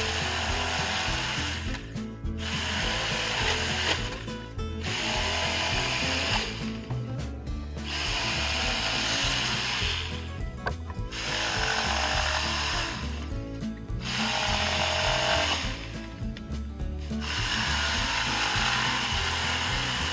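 A corded Bosch jigsaw cuts through a plywood panel in runs of about two seconds. The cutting breaks off briefly about six times as the saw is stopped and moved on along the cut line.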